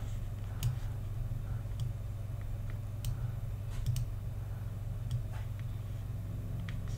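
Steady low hum with a handful of faint, scattered clicks from a computer mouse.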